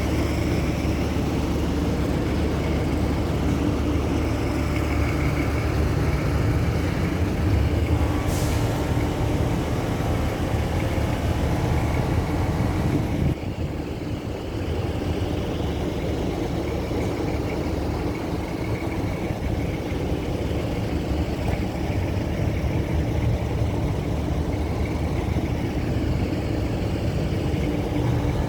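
A heavy engine running steadily with a low rumble. A short hiss comes about eight seconds in, and the level drops briefly around thirteen seconds.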